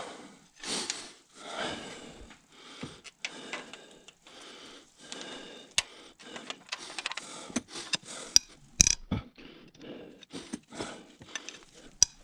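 Hand tools loosening bolts on a disassembled engine: irregular metal scrapes and clicks, with a few sharp clicks about 6, 8 and 9 seconds in.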